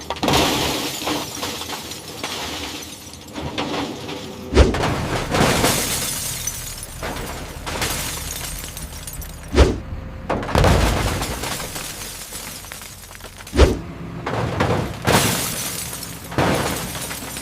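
Cars being crushed: repeated crashes of crumpling metal and shattering glass. Three heavy impacts, each followed by a few seconds of crunching and breaking, with smaller crashes in between.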